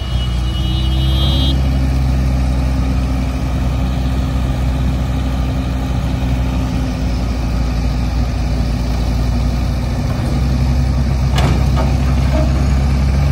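JCB backhoe loader's diesel engine running steadily under load, its pitch stepping up a little about a second and a half in and holding, as the boom lifts an overturned truck. A single short knock near the end.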